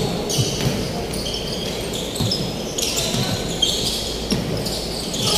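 A basketball bouncing several times on a hardwood court, with short high sneaker squeaks.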